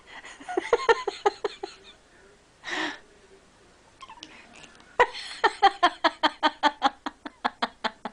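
A person laughing hard off camera in quick rhythmic 'ha-ha' pulses: one fit in the first two seconds, a sharp gasping in-breath a little before three seconds, and a second, longer fit starting about five seconds in.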